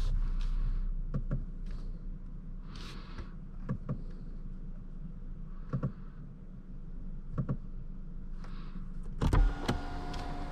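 Cabin noise of a BMW i7 electric sedan on the move: a steady low road rumble with scattered short clicks and taps. Near the end comes a louder knock, and then steady tones come in.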